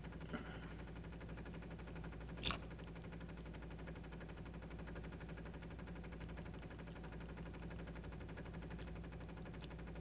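Jura Z10 superautomatic espresso machine's pump running quietly and steadily during a cold-coffee extraction, a low hum that works less hard than on hot drinks. One sharp click sounds about two and a half seconds in.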